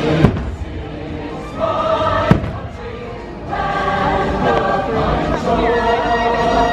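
Fireworks show music with a choir singing, with two sharp firework bangs, one about a quarter second in and another about two seconds later.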